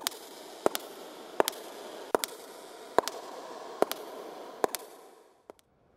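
Footsteps of hard-soled shoes on a stone floor, seven slow, even steps, each a sharp double click of heel then toe, echoing in a large hall. They fade away about five seconds in.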